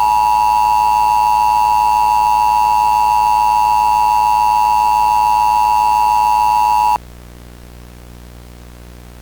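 Emergency Alert System attention signal on a cable TV Required Weekly Test: the loud, steady two-tone alert tone (853 and 960 Hz) holds without change, then cuts off suddenly about seven seconds in, leaving only a low hum.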